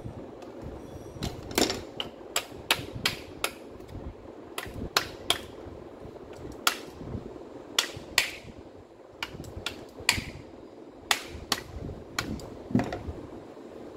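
Irregular sharp taps and clicks, about twenty of them and often two or three in quick succession, as hand tools and small trimmer parts are handled and knocked together.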